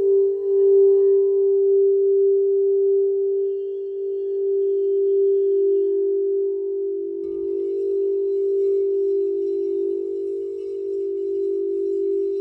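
Singing bowl ringing in one long sustained tone that wavers slowly, with faint higher overtones above it.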